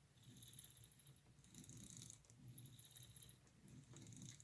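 Lionel 221 toy locomotive pushed back and forth by hand, its wheels turning the gears with a faint whir in strokes about a second apart. The axles are freshly oiled and it rolls a little easier, though it still has some resistance.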